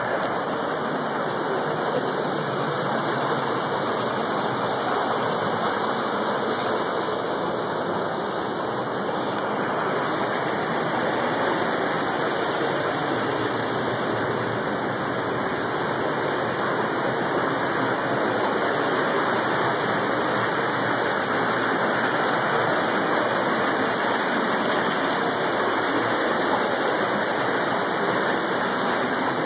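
Creek water rushing through a narrow sandstone gorge: a steady, even rush.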